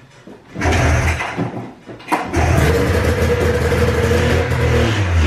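A 1993 Polaris Indy XLT's three-cylinder two-stroke engine is pull-started and catches about half a second in, firing on carb cleaner sprayed into its carburetors. It falls off briefly about two seconds in, then picks up and runs steadily for about three seconds, smoking.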